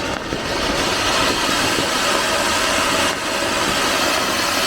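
A ground firework, such as a fountain (anar) or spinner, burning with a loud, steady hiss that shifts slightly about three seconds in.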